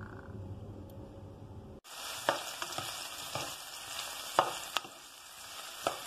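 Chopped red onion and garlic sizzling in hot vegetable oil in a nonstick saucepan, stirred with a silicone spatula, with a few sharp knocks against the pan. Before this, for the first two seconds, there is only a low hum, and it cuts off suddenly.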